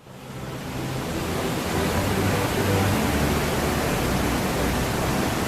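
Steady rushing of a large waterfall, the Krimml Waterfalls, fading in over about the first second.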